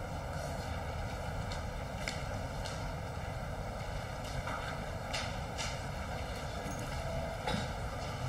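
Steady background hiss of a meeting room's sound system and air, with a few faint clicks and knocks about two, five and seven and a half seconds in.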